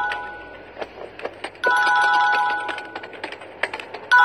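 A mobile phone ringing: a chime of a few steady tones lasting about a second, repeated about every two and a half seconds. Faint clicks sit between the rings.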